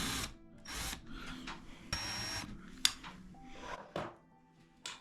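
Power screwdriver driving the mounting-bracket screws into a ceiling electrical box: the motor runs and stops just after the start, then gives several short trigger bursts as the screws are snugged down.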